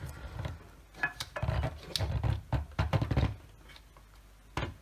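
A cordless circular saw's motor and its round circuit board being slid and pressed into the saw's housing by hand: plastic and metal parts rubbing and knocking in a run of small clicks, with a sharp click near the end.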